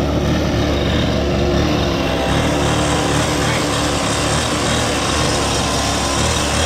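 Small gasoline engine of a home-made RC go-kart running steadily as the kart is driven slowly along.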